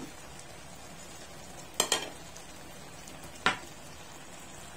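Shrimp and tomato slices cooking in sauce in a frying pan, with a steady low sizzle. Two sharp clicks come close together about two seconds in and a third about a second and a half later.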